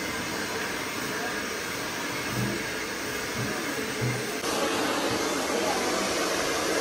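Handheld blow dryer with a comb nozzle running steadily as it blows out thick natural hair, a steady airy rush that gets louder about four and a half seconds in.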